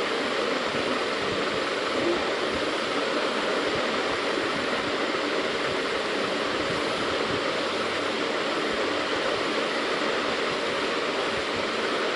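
A steady, even hiss of background noise that does not change, with nothing standing out from it.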